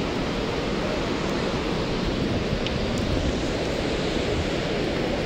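Wind blowing steadily across the microphone, a dense, even rushing noise.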